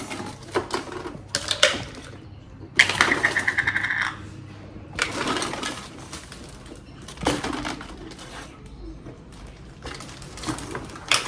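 Small plastic toy pieces clattering and rattling as they are handled, in irregular bursts, the longest rattle about three seconds in.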